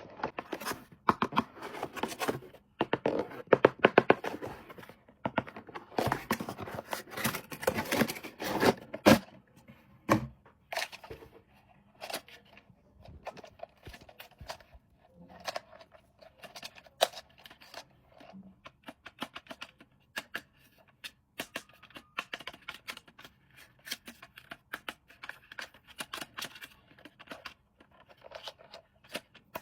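Toy packaging being handled and opened: a run of scratching, tearing and clicking, busiest and loudest in the first ten seconds, then sparser.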